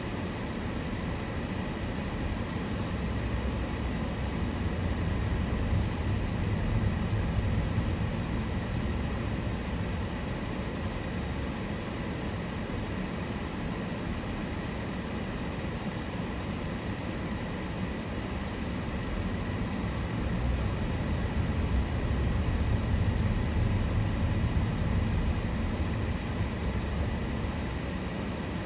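Road and engine noise of a moving car heard from inside the cabin: a steady low rumble that swells twice and eases off again. A faint steady high whine runs underneath.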